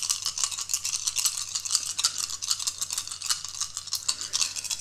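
A handful of Elder Sign game dice shaken together in the hands, a fast continuous clicking rattle.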